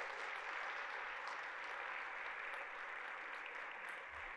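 Congregation applauding: steady clapping from many hands that eases off slightly toward the end.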